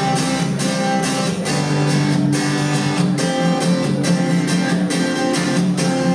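Acoustic guitar strummed in a steady rhythm, an instrumental passage of a song with no singing.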